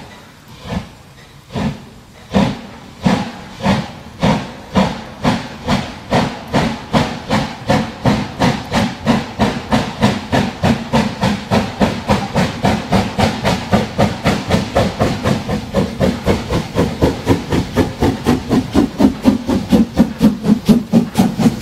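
Steam locomotive exhaust chuffing, the hissing beats quickening steadily from about one a second to four or five a second and growing louder as the train gathers speed.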